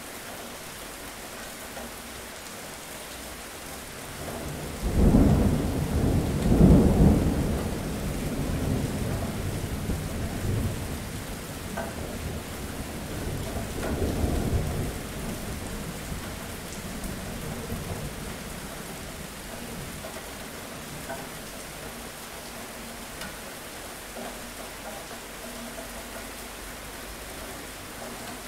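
Steady rain with a clap of thunder about five seconds in that rolls on as a long low rumble. It swells again a few seconds later, then fades back into the rain.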